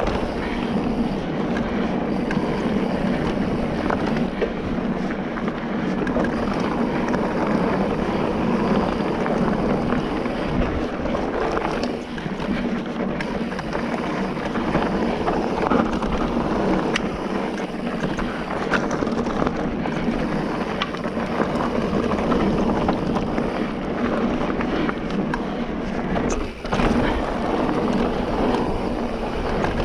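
Wind rushing over the microphone and the steady rumble of an e-mountain bike, a Specialized Turbo Levo Comp, riding a rough trail, with a few brief knocks.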